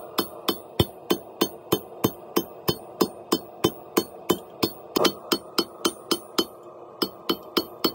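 Hand hammer striking a red-hot leaf-spring steel bar on an anvil in steady forging blows, about three a second, with a short break about six seconds in. Each blow is a sharp metallic strike.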